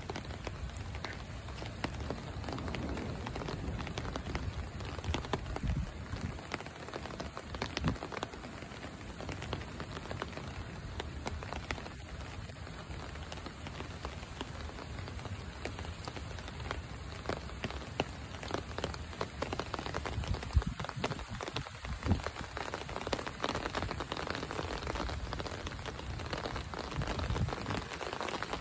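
Steady rain falling onto floodwater covering a street, countless drops splashing on the water surface.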